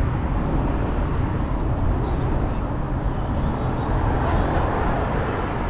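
Wind rumbling on the microphone of a moving bicycle rider, over street traffic noise, with a swell of louder noise about four seconds in.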